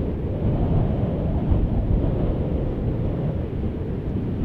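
Wind buffeting the microphone: a steady low rumble that rises and falls in irregular gusts.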